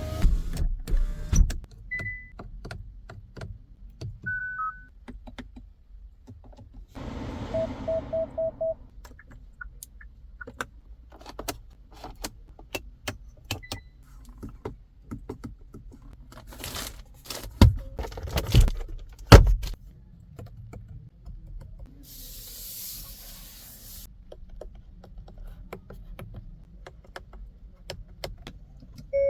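A string of Hyundai Creta Electric fitting and control sounds: many sharp clicks, a few short electronic beeps with a quick run of beeps and a brief motor whir about seven seconds in, three heavy thumps around eighteen seconds, and a short hiss a few seconds later.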